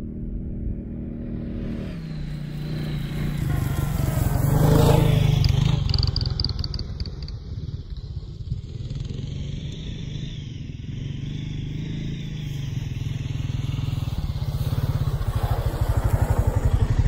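Four-wheeler (ATV) engine running as it drives around the field, growing loud about five seconds in as it passes close, easing off, then getting louder again near the end as it comes back with a steady low pulsing note.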